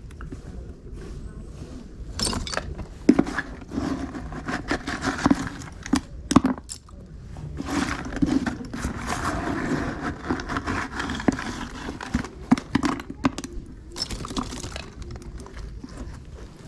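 Scrap metal from magnet fishing clanking and rattling as it is handled, with many irregular knocks and clinks.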